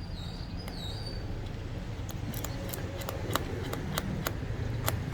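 Light, irregular clicks and taps of small metal hand tools working on a phone SIM tray, a few per second from about two seconds in, over a low steady hum.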